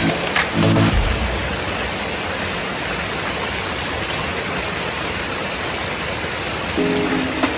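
Steady rushing noise with no distinct events, between a short stretch of background music that ends about a second in and returns near the end.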